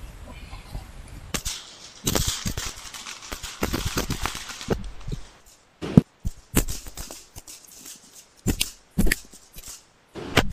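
Gunfire from 9mm service pistols: about a dozen single shots at irregular intervals, some sharp and loud, others fainter.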